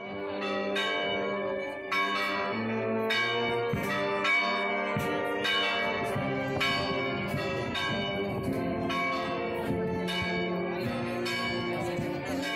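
Church bells ringing: several bells struck in turn, about two strikes a second, their tones ringing on and overlapping.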